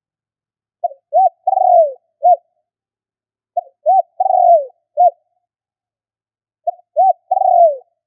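Spotted dove cooing: three matching phrases about three seconds apart, each a short note, an arched coo, a longer falling coo and a short closing coo.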